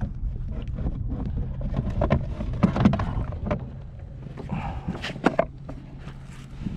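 Wind rumbling on the microphone, with scattered knocks and clicks; the loudest knocks come in a cluster near the middle and once about five seconds in.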